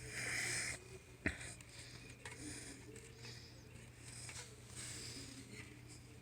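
Faint handling noise from fitting zip ties around a spoke light on a bicycle wheel: soft rustling and light plastic ticks, with one sharp click about a second in, over a steady low hum.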